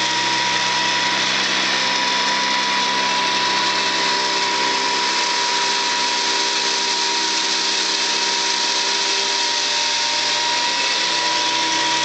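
Hoover commercial upright vacuum cleaner running steadily as it is pushed over carpet: a constant motor whine over a high hiss of rushing air.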